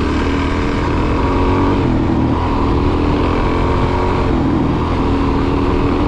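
Suzuki DR-Z400's single-cylinder four-stroke engine running under way at a fairly steady speed, its pitch rising and falling slightly.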